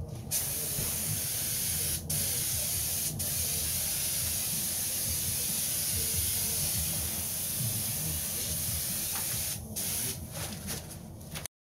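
Spray gun hissing steadily as it sprays a coat of resin onto a foam core bulkhead, with brief breaks about two and three seconds in and several short stops and starts near the end as the trigger is let go; it cuts off abruptly just before the end.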